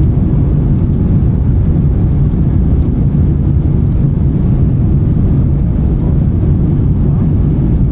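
Steady low rumble of an Airbus A350-900 cabin in the climb after takeoff: the Rolls-Royce Trent XWB engines and the airflow around the fuselage, heard from inside the cabin.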